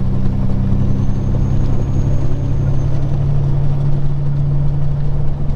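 Peterbilt 379 truck's diesel engine running steadily, heard from inside the cab while driving at low speed, with a deep, even drone.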